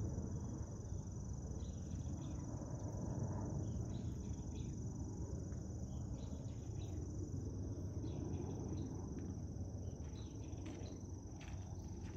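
Outdoor ambience: a steady high thin tone over a low background rumble, with a few faint short chirps scattered through.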